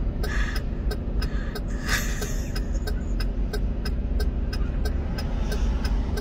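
Vehicle engines idling in stopped traffic: a steady low rumble with a light, regular ticking over it.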